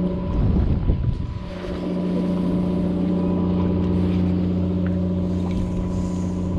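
An engine running steadily, a constant low hum. About half a second in there is a short rough rumble over it.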